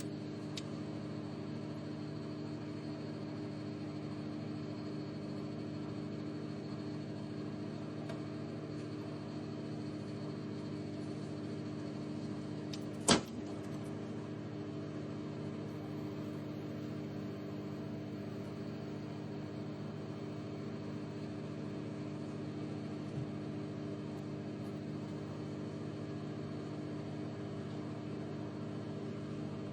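Microwave oven running with a steady hum. About thirteen seconds in, a single sharp pop, the balloon heated inside it bursting, after which the hum carries on unchanged.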